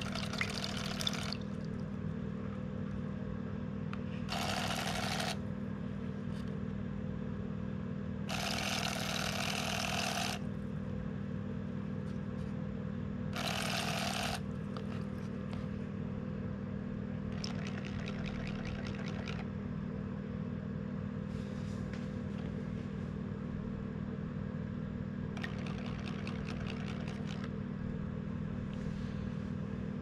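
Prototype vibrating fishing lure in a bucket of water, its small motor-driven wing blades splashing and churning the surface in bursts of one to two seconds, about every four seconds, under a steady low hum. The first few bursts are loud and the later ones fainter.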